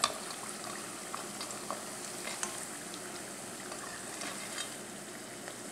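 Thattai rice-flour crackers deep-frying in hot oil in a steel kadai: a steady sizzle, with a few light clicks as a slotted spoon moves them in the pan. They are nearly done, browned and crisping.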